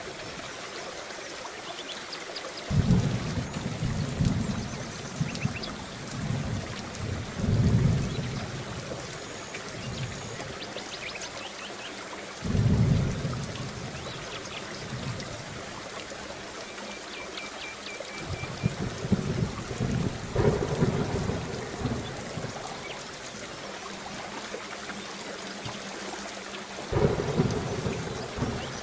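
Steady heavy rain with rolls of thunder rumbling in every few seconds, the strongest about three seconds in, a third of the way through, and near the end.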